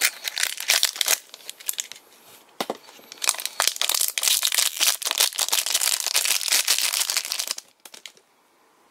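Thin clear plastic wrapping crinkling and crackling in the hands as a small capsule-toy figure is unwrapped from its bag. There are two spells of crinkling: a short one at the start and a longer one from about two and a half seconds in. The crinkling stops shortly before the end.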